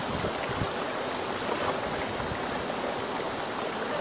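Small forest creek running over rocks and a little cascade: a steady, even rush of water.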